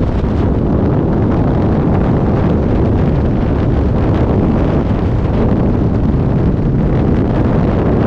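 Freefall airstream blasting over a GoPro Max camera's microphone: loud, steady wind noise, heaviest in the low range.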